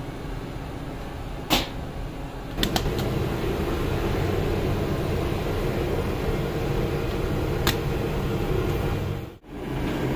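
Bakery machinery running with a steady low hum, with a few sharp knocks about one and a half seconds in, soon after, and again near the end.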